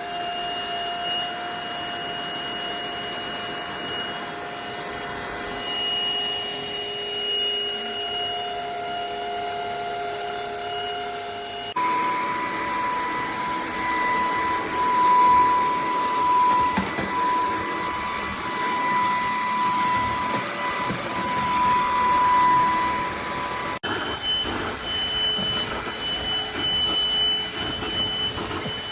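Stanew 22.2V 150W cordless stick vacuum running steadily with a high motor whine. It comes in three stretches joined by abrupt cuts, about 12 seconds in and again near 24 seconds, and the whine sits at a different pitch in each stretch.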